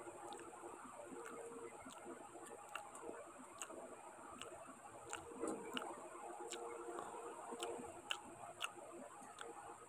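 Eating sounds of someone chewing rice and curry eaten by hand: faint, irregular wet clicks and smacks, a couple a second, over the steady noise of an electric fan.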